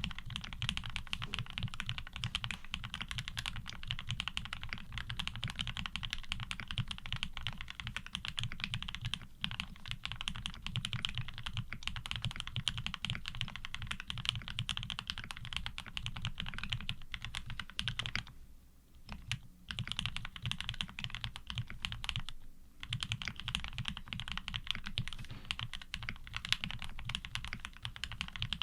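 Fast, continuous typing on a 7V custom mechanical keyboard with lubed Gateron Ink Black linear switches and GMK keycaps. Two brief pauses come about two-thirds of the way through.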